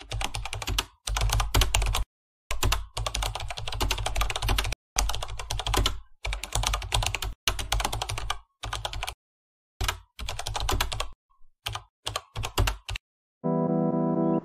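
Computer keyboard typing sound effect: runs of rapid key clicks broken by short, dead-silent pauses. Near the end the typing stops and music with held notes begins.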